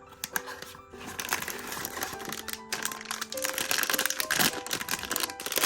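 Packaging crinkling and rustling as a blind box is opened, growing louder toward the end, over background music with held notes.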